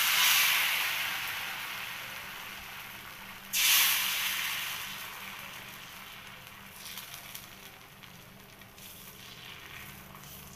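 Thin tomato dosa batter poured onto a hot cast-iron dosa tawa, setting off a loud sizzle that dies down over a few seconds. A second pour about three and a half seconds in sets off another loud sizzle, which fades to a faint, crackling sizzle.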